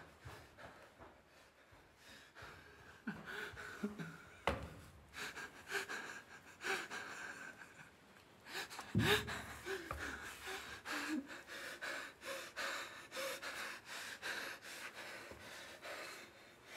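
A young man crying in gasps, ragged breaths and short whimpering cries, with a louder sobbing cry about nine seconds in. A single sharp knock sounds about four and a half seconds in.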